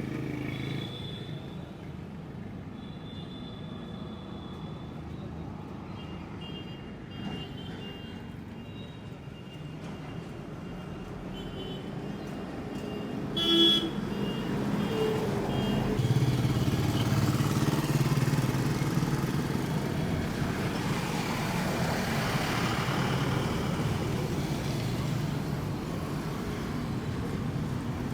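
Street traffic: vehicle engines running and passing, getting louder in the second half, with a short horn toot about halfway through.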